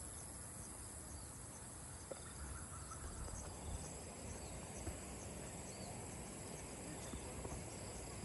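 Insects chirring, a steady high pulsing drone, over a low rumble on the microphone, with a few faint ticks.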